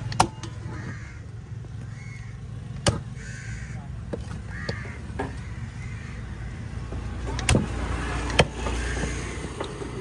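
A large curved fish knife chopping through fish on a wooden chopping block: a handful of sharp chops, the loudest just after the start, a little before the middle, and two close together near the end. Short calls, crows cawing, come in between.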